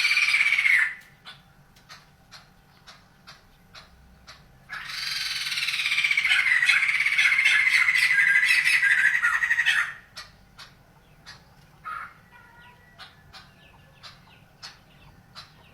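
A bird calling. A call ends just under a second in and is followed by short clicking chips. Then comes one long chattering phrase of about five seconds, then more scattered chips.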